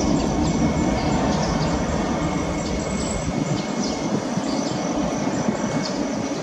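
Airbus A321-200's twin turbofan engines at takeoff thrust: a steady deep roar as the airliner rolls down the runway, easing slightly as it moves away.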